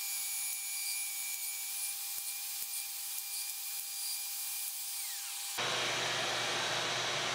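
Festool OF 1400 plunge router motor running with a steady whine between plunges while drilling shelf-pin holes on the LR32 guide-rail system. The sound changes abruptly about five and a half seconds in, and the motor's pitch starts to fall at the very end as it winds down.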